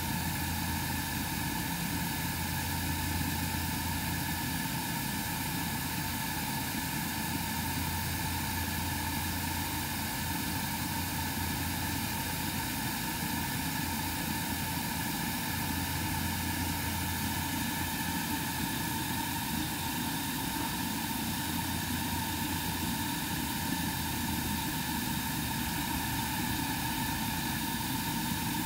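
Oil burner of a live-steam ride-on scale 10-wheeler steam locomotive firing steadily as it stands: an even rushing sound with a low hum that swells and fades, and a couple of steady high tones.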